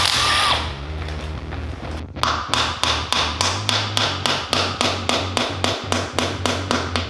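Cordless ratchet running on the bolts of a golf-cart transaxle housing, stopping about half a second in. From about two seconds in comes an even series of sharp ticks, about four a second.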